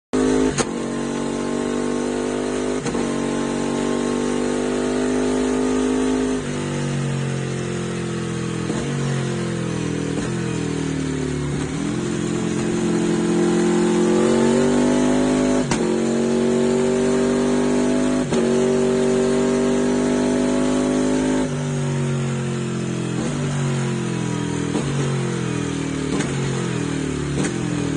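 Ducati Panigale V4 sportbike's V4 engine running hard on a dynamometer. Its pitch holds, climbs and falls off in steps, with a sharp crack every few seconds as the revs change.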